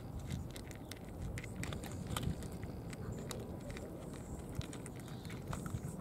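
Cats eating from plastic trays: many small, irregular crunching clicks of dry kibble being chewed, over a low background rumble.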